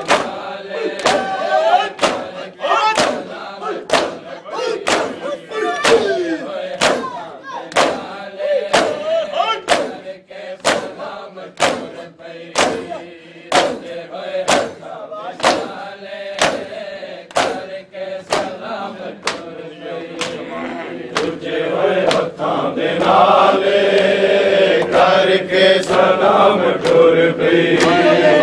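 Matam: a group of mourners beating their chests with their hands in a steady beat, about two slaps a second, while a noha is recited and the crowd chants along. The chanting grows fuller and louder about two-thirds of the way in.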